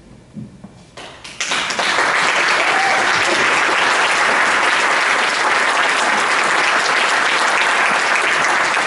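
Audience breaking into applause at the end of a live performance: after about a second of near quiet, a sudden start of many people clapping, then dense, steady applause.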